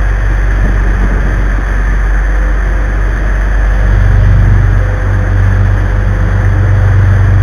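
Sportfishing boat's inboard engines running steadily under way, a loud low drone mixed with the rush of wind and wake water. The engine hum grows louder about four seconds in.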